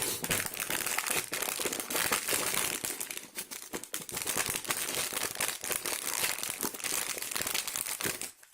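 Parcel packaging being crinkled and torn open by hand: a continuous crackling rustle made of many small crinkles that stops near the end.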